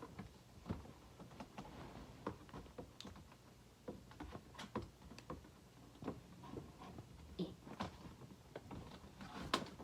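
Faint, irregular clicks, taps and rustles of a LEGO set's cardboard box and plastic parts bags being handled during unpacking.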